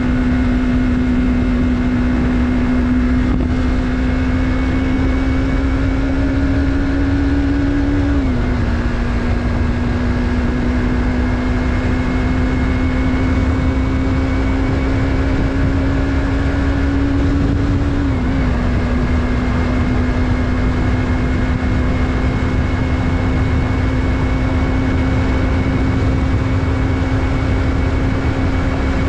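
Yamaha MT-03's 321 cc parallel-twin engine running while riding. Its note climbs slowly and drops sharply twice, about eight seconds in and again around eighteen seconds in, as at upshifts. A steady low rumble of wind and road noise runs underneath.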